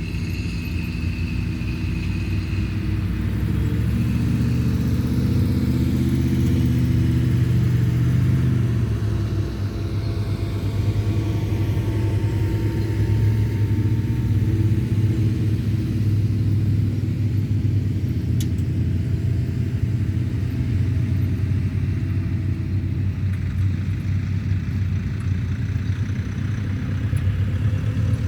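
Off-road vehicle engine running while driving, a steady low rumble whose engine note shifts, with a brief drop in level about nine seconds in.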